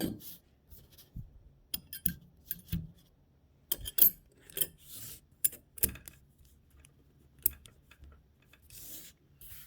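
Steel gearbox parts being handled on a bench: irregular metallic clicks and clinks as the gears and synchro pieces are picked up, turned and set down, the sharpest about four seconds in, with a brief rubbing hiss near the end.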